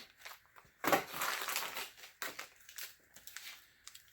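A small plastic hardware bag crinkling and rustling as screws and washers are handled, loudest about a second in, followed by a few small clicks.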